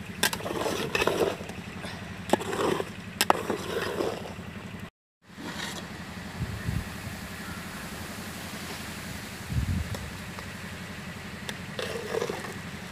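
A metal spoon stirring and scraping against an aluminium cooking pot full of rice, with clinks and scrapes through the first few seconds and again near the end. In between is a steady background with a couple of dull low thumps.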